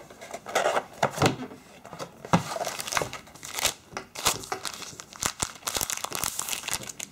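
Thin clear plastic bag around a new smartphone crinkling and crackling irregularly as it is handled and unwrapped, with cardboard box handling in the first second or so.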